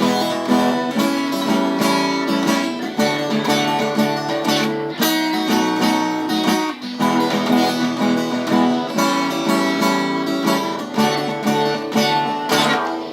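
Acoustic guitar playing an instrumental blues break: a steady run of plucked and strummed notes with no singing.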